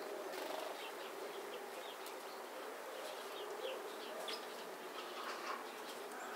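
Insects buzzing steadily, with scattered faint, short high chirps.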